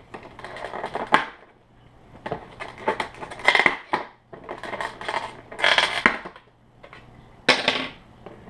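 Crinkling and rustling of plastic packaging: a thin vacuum-formed tray and wrapping handled in a box, in several irregular bursts.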